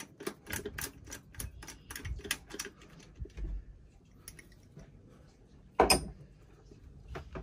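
Socket wrench ratchet clicking in quick strokes, about four a second, as a 10 mm nut is backed off, dying away after about three seconds. About six seconds in comes one sharp, loud clack of metal or hard plastic, the loudest sound, with a smaller click near the end.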